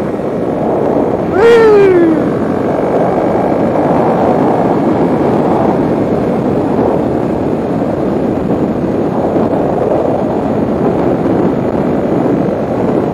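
Kawasaki KLX 300's single-cylinder four-stroke engine running through a carbon Delkevic slip-on exhaust under way, with a steady rush of noise. About a second and a half in, a brief high wail that drops in pitch rises above it; this is the loudest moment.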